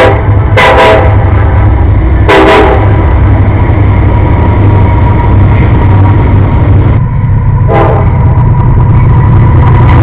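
Diesel locomotive air horns sounding short chord blasts: a quick pair about a second in, another at about two and a half seconds, and a last one near eight seconds. Under them runs the steady heavy rumble of passing diesel freight trains.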